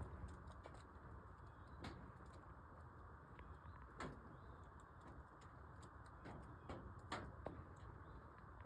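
Near silence: quiet background with a few faint, sharp clicks, about 2, 4 and 7 seconds in.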